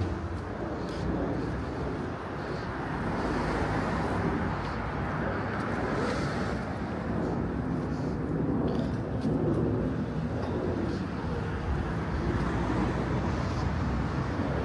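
Steady road traffic on a city street, cars passing.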